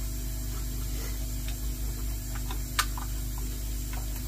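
Scattered small clicks of tools and parts being handled, with one sharper click a little under three seconds in, over a steady low hum, while a Charles Austin air pump is taken apart to fit a new diaphragm.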